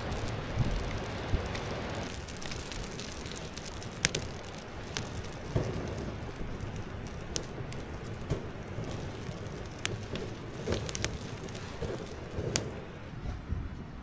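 A freshly lit kindling fire catching, with scattered sharp crackles and snaps over a steady rush of wind.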